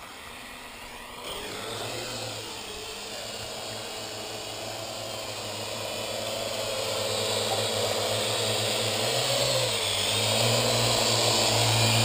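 Parrot AR.Drone quadcopter's four propellers whirring in flight, picking up about a second in and growing louder toward the end as the drone comes close.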